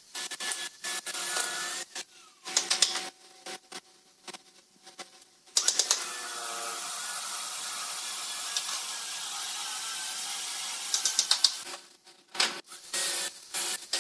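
Quick runs of light clicks and knocks of pine boards being handled and set down on a concrete floor, with a steady hiss lasting several seconds in the middle.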